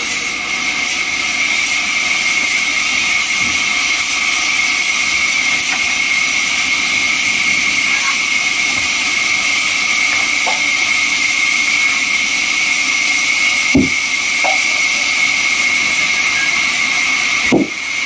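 Large vertical band saw mill running and sawing through wood: a steady high whine over a constant hiss, with a sharp knock about three-quarters of the way through.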